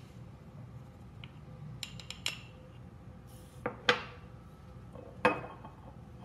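Metal measuring spoon clinking against a stainless steel mixing bowl as sugar is spooned in. A few light clicks come first, then two sharp ringing clinks close together about four seconds in and one more a second and a half later.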